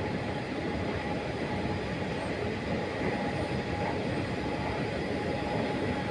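Steady mechanical rumble of a running escalator, its moving steps and drive carrying on evenly, with a faint steady hum.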